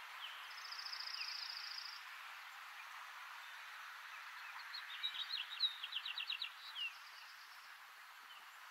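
Songbirds singing over a steady hiss: a high, rapid trill near the start, then a burst of quick chirping notes about five seconds in.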